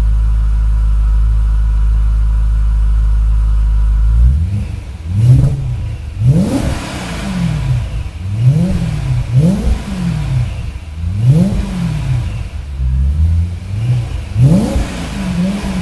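Supercharged BMW E93 M3 4.0-litre V8 idling steadily through an ESS aftermarket exhaust, then blipped repeatedly from about four seconds in, each rev rising and falling quickly.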